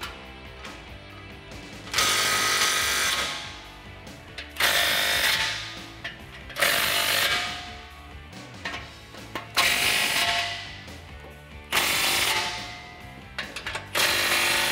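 Cordless power tool driving exhaust clamp nuts tight in about six short runs, each a second or so long, roughly every two seconds.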